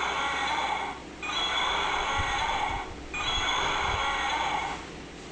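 Dino Troop Extreme toy velociraptor's electronic roar playing through its small built-in speaker, a hissing, breathy dinosaur roar sounded in three bursts of about a second and a half each, with short gaps between.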